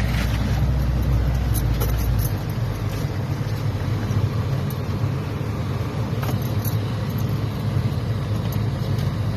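Off-road 4x4's engine and drivetrain running steadily, heard from inside the vehicle, with a few sharp knocks and rattles as it goes over rough ground. A deeper rumble underneath drops away a little over two seconds in.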